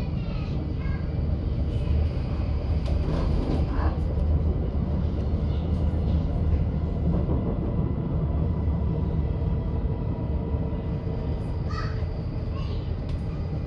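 Inside a Bern S-Bahn commuter train under way: a steady low rumble of the running train, with a faint steady whine above it.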